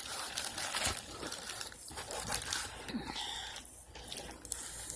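Plastic packaging crinkling and rustling as it is handled, with scattered light clicks and taps.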